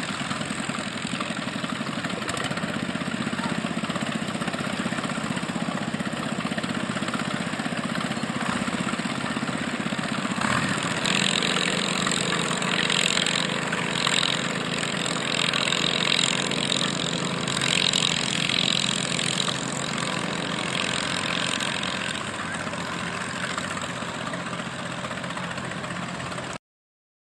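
Small antique tractor engines running steadily at low speed as tractors are driven. After a change about ten seconds in, a Farmall Cub's engine runs with a higher, uneven buzz coming and going over it. The sound cuts off suddenly near the end.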